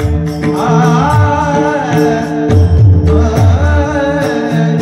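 Marathi devotional bhajan: a male voice sings a wavering melody over steady held notes, with low barrel-drum strokes and sharp cymbal strikes keeping time.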